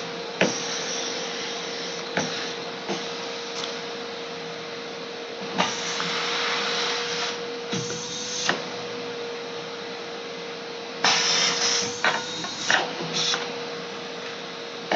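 A steady motor-like whirring hum with one constant tone. Over it come scattered sharp clicks and taps, and three short stretches of louder hiss or rustling.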